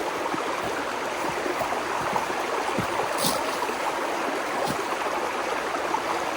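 Steady rushing of a flowing stream, with a couple of faint knocks.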